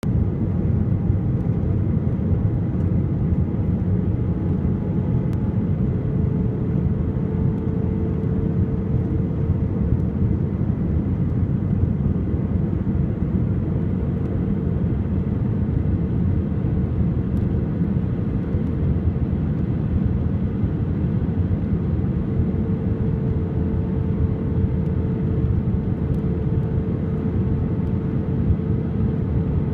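Steady cabin noise of an Airbus A319 on approach, heard from a window seat over the wing: a low rumble of the engines and airflow, with a faint hum that fades in and out.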